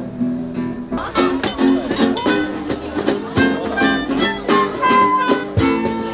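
Acoustic guitars strummed in a steady rhythm together with a melodica playing held notes; the strumming starts about a second in.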